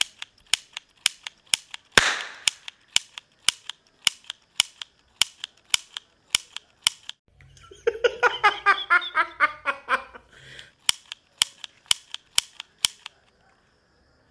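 Toy cap pistols firing ring caps, sharp snaps about two a second. In the middle there is a few seconds of faster, overlapping shots with a low hum beneath, and the shots stop near the end as the caps run out.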